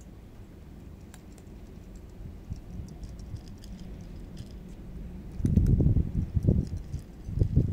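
Cats crunching dry kibble from plates: faint, quick, irregular clicks. About five seconds in, a much louder, low rumbling comes in uneven bursts and drowns them out.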